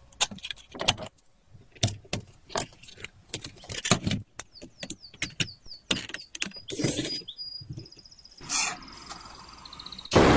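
A series of irregular sharp clicks and knocks, with a run of short high falling chirps about halfway through and a brief high buzz near the end.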